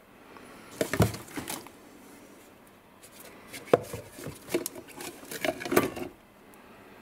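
Rummaging through a cardboard box of paint supplies: spray cans, plastic mixing cups and plastic bags knocking and clattering against each other. There is a short burst of clatter about a second in and a longer run of knocks from about three and a half to six seconds.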